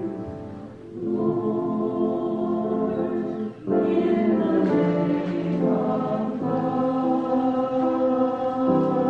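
Church chancel choir singing an anthem in sustained chords. There is a short break between phrases about a second in and another brief pause at about three and a half seconds.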